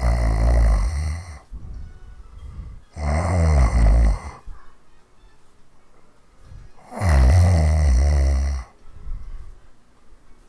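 A woman snoring hard: three long, rasping snores, one every three to four seconds, with quieter breaths between them.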